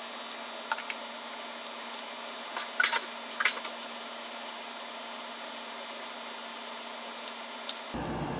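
A few light clicks, then two short clatters about three seconds in, as screwdrivers and stand-fan parts are handled during assembly, over a steady background hiss and hum.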